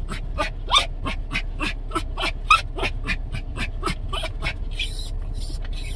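Yorkshire terrier panting fast, about four breaths a second, with short high whimpers mixed in: the dog is worked up and anxious.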